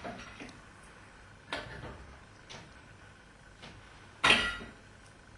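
A few scattered knocks and clicks, the loudest about four seconds in.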